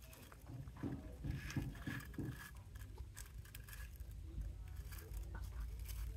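Band-type piston ring compressor being tightened with its key: faint, irregular metal clicks and scrapes. A steady low rumble comes in about halfway through.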